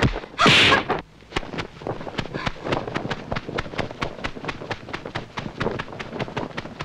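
A loud swish about half a second in, then a quick, irregular patter of sharp clicks, several a second.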